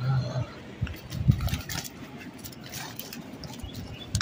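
Live fish tipped out of a nylon mesh keep net onto bare rock: scattered thuds and slaps of fish against the stone with rustling of the net, the loudest thud about a second in.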